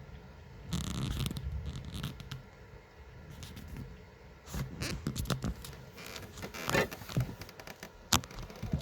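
Rustling and scraping close to the microphone, in irregular bursts with a few sharp clicks, the sharpest a little after eight seconds in.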